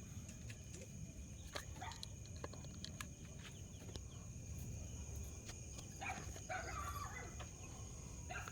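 Faint night background with a steady high-pitched drone, scattered small ticks and scratches, and a few short animal calls from about six seconds in.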